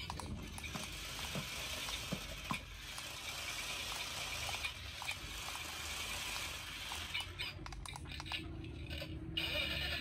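Remote-control stunt car with multi-roller wheels driving on floor tiles: its small electric gear motors whir with a fast gear-like ticking, and there are scattered light clicks. The whirring drops out for about two seconds near the end, then starts again.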